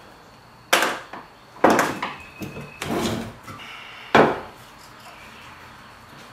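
Wooden boards knocking and sliding on a workbench as they are handled: four sharp knocks in about three and a half seconds, with a short scraping sound between the second and last.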